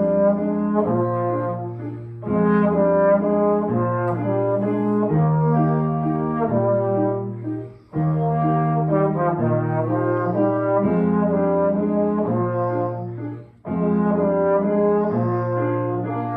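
Brass instruments playing a waltz: held chords over a bass note that changes about every second and a half, with short breaks between phrases about 2, 8 and 13.5 seconds in.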